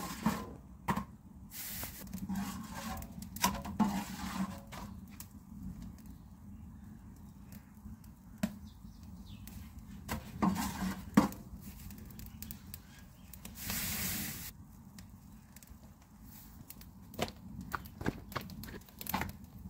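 Straw fire crackling in a clay chulha under an iron tawa as rotis cook, with scattered clicks and knocks from handling the bread and pan. A brief hiss a little past the middle.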